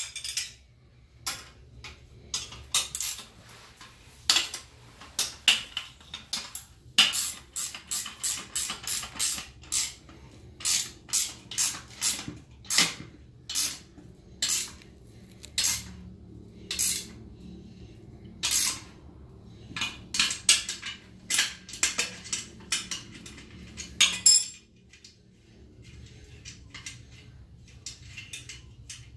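Hand wrench clinking and clicking against bolts and a steel bracket as the bracket is bolted onto a rear differential: irregular sharp metallic clinks, sometimes in quick runs, stopping a few seconds before the end.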